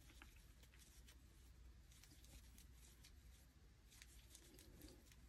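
Near silence, with faint scattered ticks and rustles of a crochet hook working yarn.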